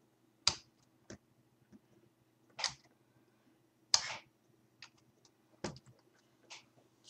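Scattered clicks and knocks of objects being handled on a desk, with two short rasping noises a little before and around the middle, over a faint steady hum.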